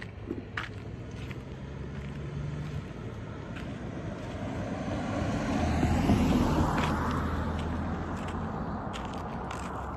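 A car passing on the road, its sound building to a peak about six seconds in and then fading away.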